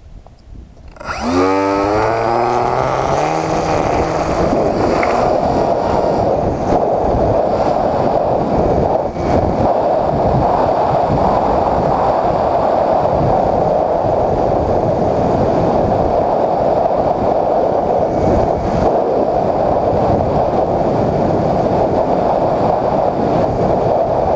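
Electric RC plane's Turnigy 2200kv brushless motor and 7x4.5 propeller throttling up about a second in, its whine rising in pitch. It then settles into a steady drone mixed with wind rush on the onboard camera's microphone as the plane flies.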